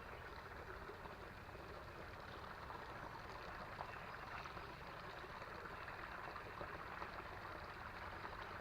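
Faint, steady rush of a small creek's running water.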